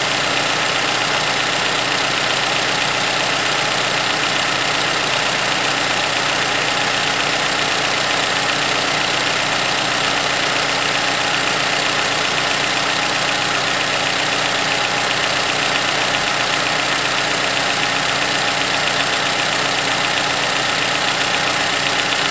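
Toyota 2AR-FE 2.5-litre four-cylinder engine idling steadily, a known-good engine running during a cam/crank correlation check.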